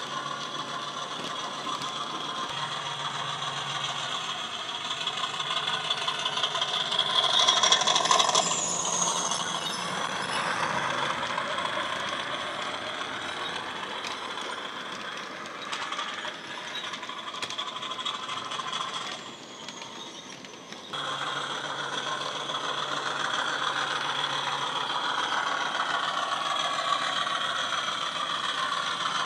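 Recorded diesel engine and turbocharger sound of a Hornby Class 50 model locomotive, played by its DCC sound decoder through a small square passive-radiator speaker, mixed with the clicking clatter of model wagon wheels running over the track. It swells louder about a quarter of the way through, drops away briefly about two-thirds through, then runs on steadily.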